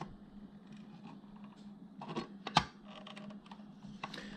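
Sheet-metal lid of a power supply being lifted off and handled: light metallic clicks and rattles, with one sharper knock about two and a half seconds in.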